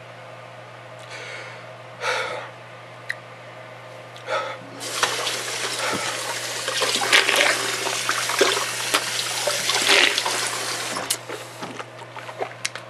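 Two heavy breaths from a man whose mouth is burning from a bite of ghost pepper. Then, from about five seconds in, some six seconds of rushing, splashing liquid full of small clicks, which dies away with a few drips and clicks.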